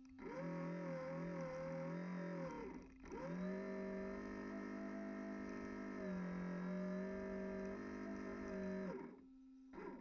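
The small electric drive motor of a radio-controlled fireboat, heard from on board. It spins up and runs at a steady pitch for about two and a half seconds, stops briefly, then spins up again and runs for about six seconds before winding down near the end. A faint steady hum sits underneath.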